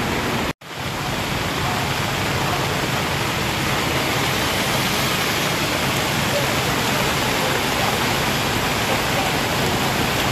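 Heavy rain and floodwater rushing across a street, a steady, loud hiss that drops out for a moment about half a second in.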